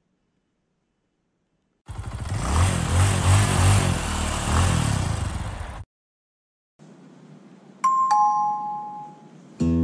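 Edited intro sound effects: a loud whooshing sting with a pulsing low beat for about four seconds under the channel logo, cutting off suddenly. After a second of silence comes faint hiss and a two-note falling chime like a doorbell ding-dong, with acoustic guitar music just starting at the very end.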